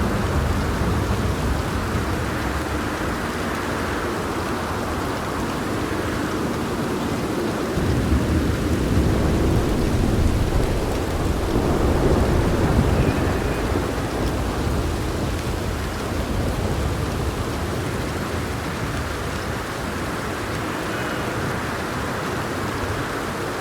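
Steady heavy rain with rolling thunder. Low rumbles swell near the start and again about a third of the way through, then ease off.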